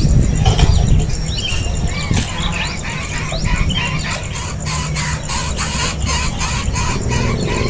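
Birds calling in short, high chirps and squeals, coming thick and fast in the second half, over a low steady hum.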